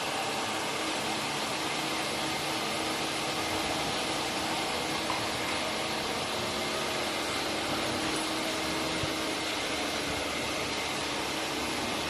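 Steady whirring noise with a faint hum, from a running fan-like machine such as an air conditioner.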